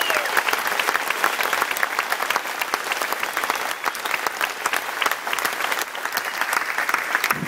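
Large outdoor crowd applauding, many hands clapping steadily.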